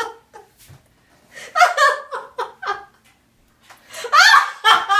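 A person laughing in two bouts, the first about a second and a half in and the second near the end, which rises in pitch.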